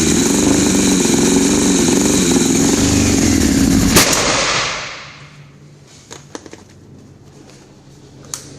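1996 Honda CBR900RR inline-four engine running, then shut off about four seconds in with a sharp crack, the engine note dying away within a second. A few faint clicks follow.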